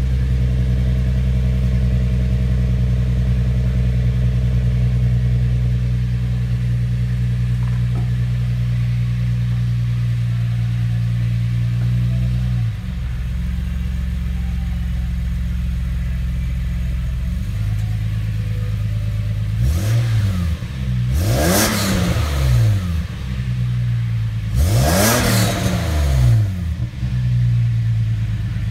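Toyota Land Cruiser 80-series engine heard at the tailpipe through aftermarket headers and exhaust with the resonator still in place. It idles steadily, then is revved twice, about 20 and 25 seconds in, each rev rising and falling back to idle.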